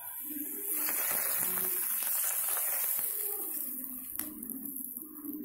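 Hot oil with freshly fried onions poured over the rice of a biryani, sizzling as it hits the rice and fading away after about four seconds.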